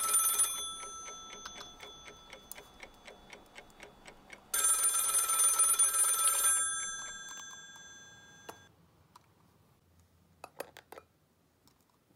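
A bell-like telephone ring, sounding twice: one ring stops about half a second in, another starts about four and a half seconds in and lasts about two seconds, each fading slowly after it stops. A few faint taps near the end.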